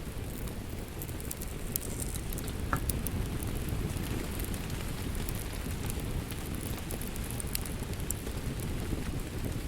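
Steady rain mixed with a crackling fireplace: an even wash of rain with frequent small, sharp crackles and pops from the fire scattered through it.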